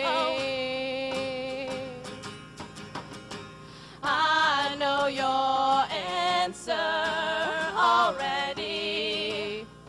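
Live acoustic folk performance: female voices singing wordless "oh" lines over acoustic guitar and hand drum. A held note fades out in the first two seconds and leaves a quieter stretch of guitar and drum taps. From about four seconds in, the singing comes back loud with wavering, sliding notes.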